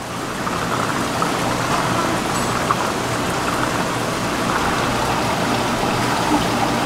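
Steady hiss and patter of splashing or running water, swelling up over the first half-second, with scattered small clicks and knocks.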